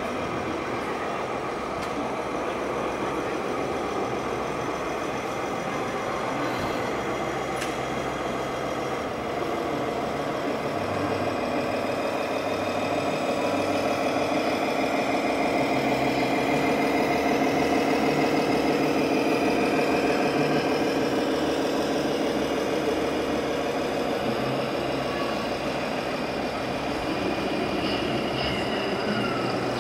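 Diesel truck engine sound from the sound module of a radio-controlled Mercedes-Benz Actros model truck, running steadily and growing louder around the middle, over the noise of a busy hall.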